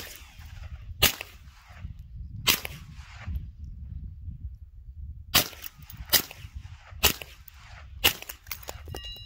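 Gunshots: about six single shots fired at uneven intervals, each trailing off in a short echo.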